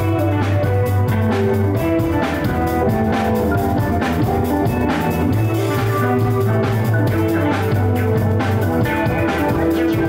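A live funk band playing: electric guitar and keyboards over a drum kit, with a strong held bass note under regular drum hits.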